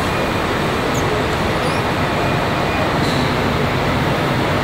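Steady background din of a truck assembly hall: an even machinery rumble with a low hum.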